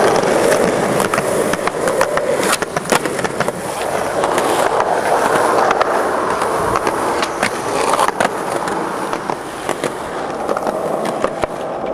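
Skateboard wheels rolling on concrete: a steady rolling rumble with frequent sharp clicks and clacks.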